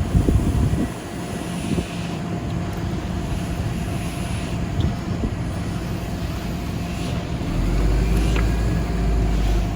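An engine running steadily, with a low wind rumble on the microphone in the last couple of seconds.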